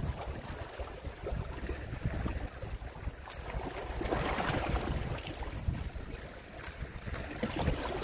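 Wind buffeting the microphone over small sea waves washing against the shore, with a swell of wash about four seconds in.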